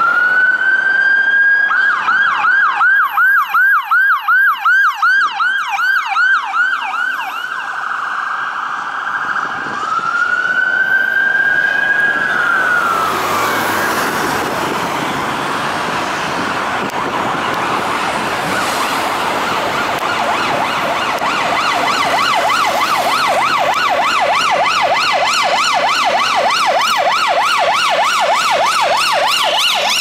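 Ambulance sirens: a Mercedes Sprinter ambulance's electronic siren wails up to a steady tone, switches to a fast yelp for several seconds, then wails again and drops away as it passes. Road and engine noise follow, and then a second siren, the Ford Mondeo rapid response car's fast yelp, runs through the last third.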